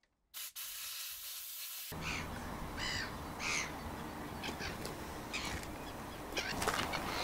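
A short steady hiss lasting about a second and a half, then open-air background noise in which birds call harshly a few times, with scattered clicks and knocks.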